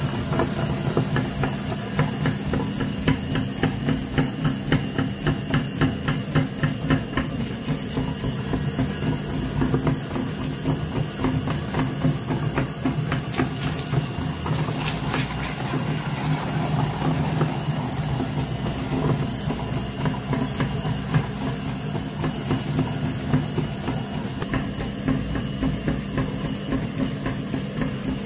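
Electric meat grinder running with a steady motor hum, its auger crunching and clicking fast as it grinds up toy pieces pushed into the hopper. There is one sharper knock about halfway through.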